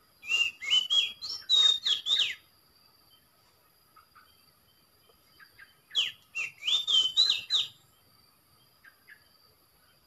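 Oriental magpie-robin song: two loud phrases of quick whistled notes sliding up and down in pitch, each about two seconds long, the second starting about six seconds in.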